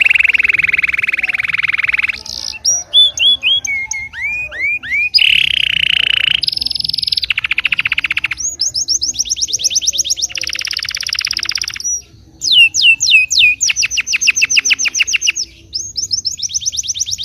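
Caged songbirds, a canary and a kapas tembak, singing. Long, very fast rolling trills alternate with runs of quick, sharply falling whistled notes, with a short break about twelve seconds in.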